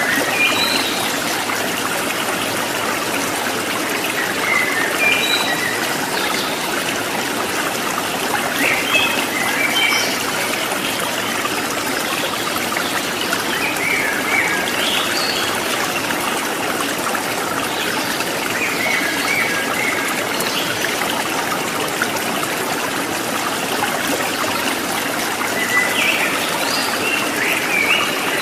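Steady trickle of a flowing stream, with short, high bird chirps every few seconds.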